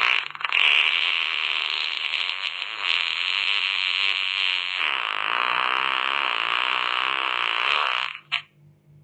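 A long, drawn-out fart sound effect: a raspy, fluttering blast lasting about eight seconds, changing in character about halfway through, then a short squeak just after it stops.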